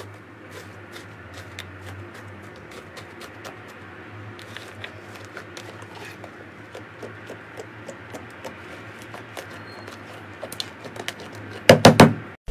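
Thick green slime being poked, stretched and folded by hand, giving a steady run of small clicks and pops over a low hum. Near the end come three loud pops in quick succession.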